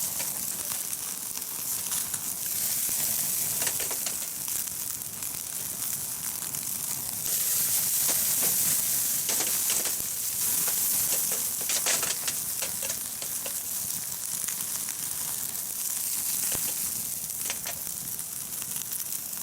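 Jidori chicken thigh sizzling as it grills over a wood fire, with a steady hiss and many small crackles and pops. The sizzle swells louder for a few seconds in the middle.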